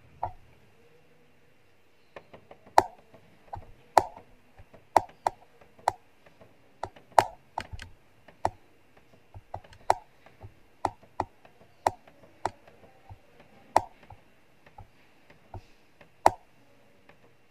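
Control-panel keys on a Brother DCP-L2540DW printer being pressed over and over, an irregular run of clicks up to about two a second, as a Wi-Fi network key is entered with the arrow keys. One click comes right at the start, then a pause before the run begins about two seconds in.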